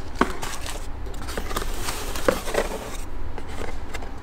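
Paper manuals and a cardboard box being handled: rustling and scraping with scattered light taps as the box flaps are opened, over a steady low hum.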